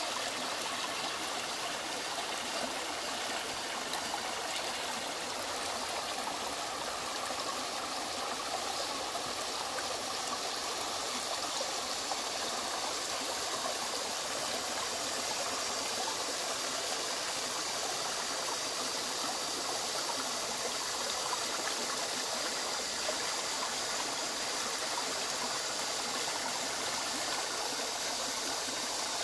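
Small rocky stream flowing and splashing over stones: a steady rush of water.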